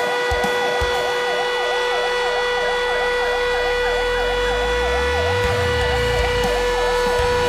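Fire engine siren sounding a fast rising-and-falling wail, about three cycles a second, as the new MAN fire truck approaches; its engine rumble rises from about five seconds in.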